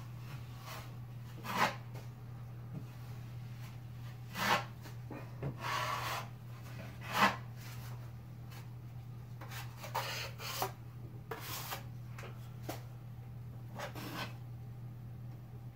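Drywall knife scraping across the ceiling as it spreads and feathers joint compound, in a series of irregular strokes, the loudest about seven seconds in.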